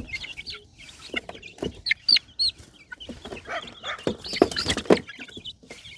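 Young chickens clucking, with short high peeps and chirps scattered irregularly throughout.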